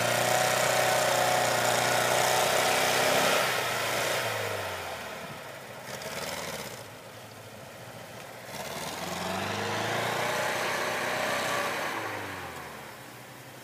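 Engine of a track-converted vehicle labouring through slush. It runs hard for the first few seconds and drops back about four seconds in. It rises again to run hard from about nine seconds and eases off near the end.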